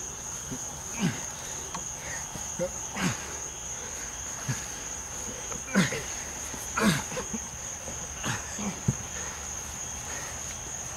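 Crickets chirping in a steady high-pitched band, with short grunts at intervals from two people grappling on the grass, the loudest about six to seven seconds in.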